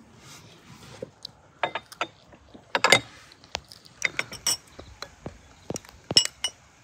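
A metal spoon clinking and tapping against a cut-glass jam bowl and china dishes as jam is served. It is an irregular run of sharp clicks, the loudest a quick cluster about three seconds in, and a few leave a brief glassy ring.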